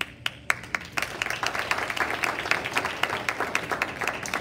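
Audience applauding: a few separate claps at first, building to steady applause of many hands about a second in.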